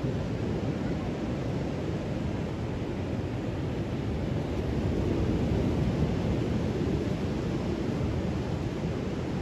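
Ocean surf on the beach: a steady low rushing of waves, swelling slightly about halfway through.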